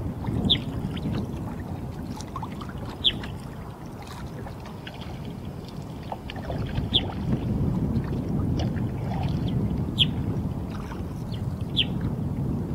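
Water sloshing and lapping around a paddled kayak, with short sharp downward chirps of purple martins about five times, every two to three seconds.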